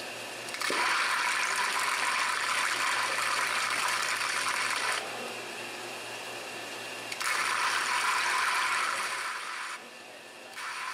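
Die-sinking EDM machine making a roughing cut at high power with a gear-shaped electrode: a harsh hiss of sparking that comes in three bursts with short pauses between them, over a faint steady machine hum that stops near the end.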